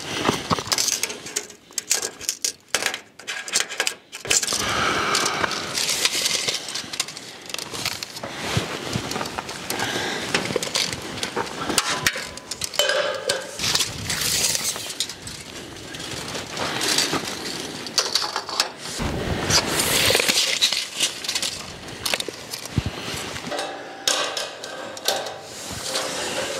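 Metal clinking and clattering as steel pieces and tools are handled, with many short knocks, over a steady rush of wind on the microphone.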